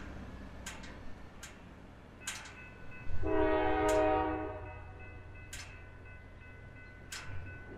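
Norfolk Southern diesel locomotive sounding its air horn in one blast of about a second and a half, over the low rumble of the approaching train. A few sharp clicks and a thin steady high tone are also heard.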